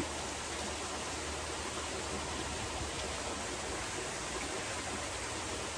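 Steady, even rush of water from a backyard pool's rock waterfall splashing into the pool.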